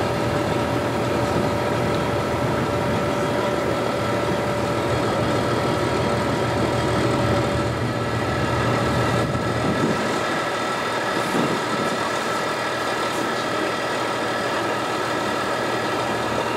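Motorboat engine running steadily under way: an even hum with a few held tones over a constant noisy rush.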